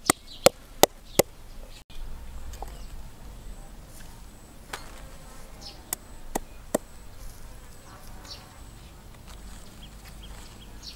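A cleaver chops on a wooden chopping block in four quick, sharp strikes in the first second or so. After a cut, outdoor background follows with faint insect buzzing and a few light knife taps.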